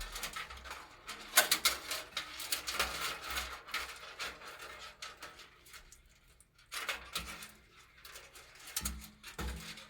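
Irregular clicks, taps and rustling from computer parts being handled and fitted, with a couple of dull low knocks near the end.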